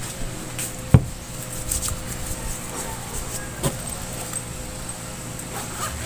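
Objects being handled on a table: a sharp knock about a second in, a second knock a few seconds later, and small clicks as a plastic spray bottle is set down and a zippered pouch is picked up, over a steady low hum.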